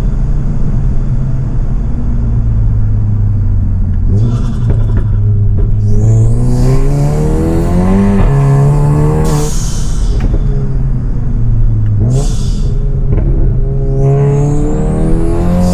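Tuned, decatted Volkswagen Golf GTI's 2.0-litre turbocharged four-cylinder accelerating through the gears from inside the car. The revs climb, drop back at each shift and climb again, with short hissing bursts of turbo flutter between pulls.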